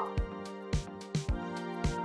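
Background music with a steady beat: soft held tones over a low thump about every half second.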